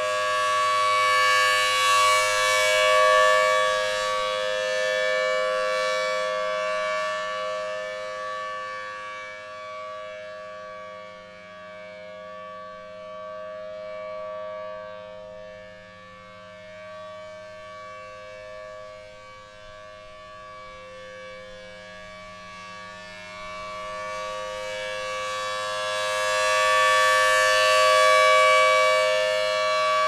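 Federal Signal Thunderbolt 1000T civil defense siren sounding a steady full-alert tone. The pitch holds level, while the rotating horn makes the sound swell loud near the start, fade through the middle, and swell loud again near the end.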